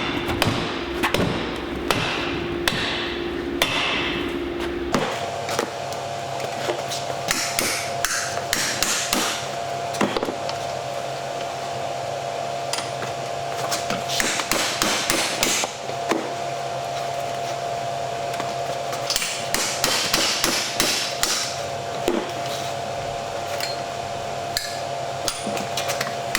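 Hammer repeatedly striking a stainless steel exhaust pipe end, beating it down to reduce its diameter: bursts of quick metallic blows with short pauses between.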